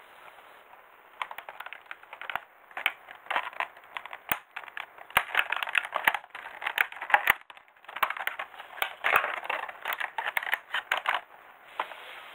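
Thin clear plastic blister tray being cut open with scissors, crackling and clicking sharply in several bursts. The sound stops about a second before the end.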